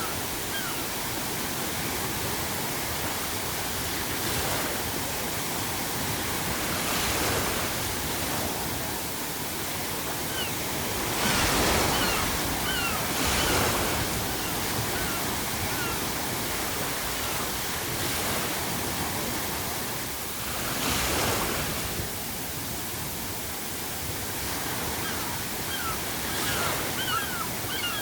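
Sea waves breaking on a shore in a steady wash, with several louder crashes about 11 to 14 seconds in and again around 21 seconds. Seagulls call faintly in short cries, most often near the end.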